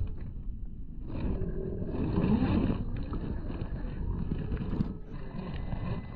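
Traxxas TRX-4 Land Rover Defender scale RC crawler's electric motor and geared drivetrain whining in uneven surges as it crawls over loose dirt, with the pitch rising and falling briefly about two seconds in.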